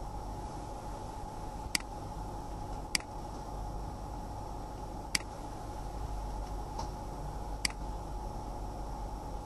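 Computer mouse clicks: four sharp single clicks, a second or more apart, and one fainter one, over a steady background hum and hiss.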